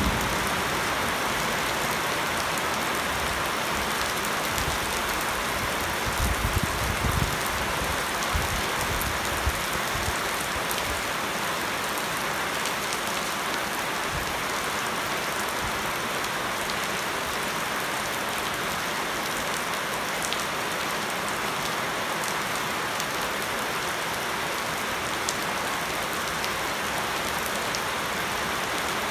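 Heavy rain falling steadily on leaves and a flooded paved yard, an even hiss of drops. There are a few brief low rumbles in the first several seconds.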